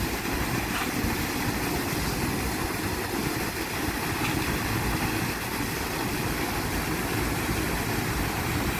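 Plaza fountain's arcing water jets splashing onto the paving and into the central pool, a steady rush of water.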